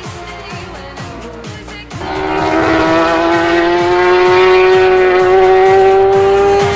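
Superbike racing engine at high revs: a quieter note falling in pitch, then about two seconds in a loud engine note that climbs slowly in pitch as the bike accelerates. Background music with a steady beat runs underneath.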